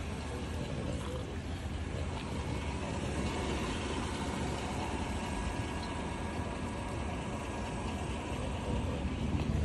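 Steady low rumble of a vehicle engine idling, even and unbroken.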